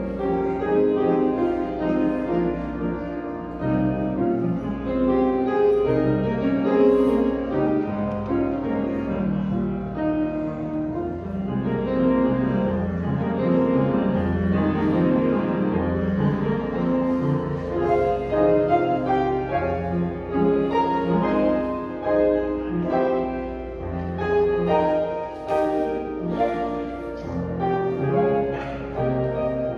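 Upright piano being played, a continuous piece of changing notes and chords.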